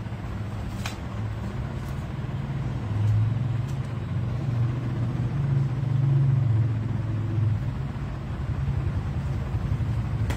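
Low, steady engine hum that grows louder about three seconds in and eases off near eight seconds.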